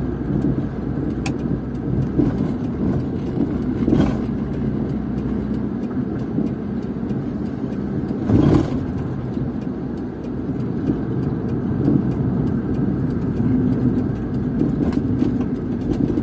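Inside the cabin of a Proton car on the move: a steady rumble of engine and tyres. One louder whoosh comes about eight and a half seconds in.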